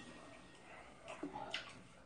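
A few light clicks of chopsticks and a spoon against dishes during a meal, about a second in.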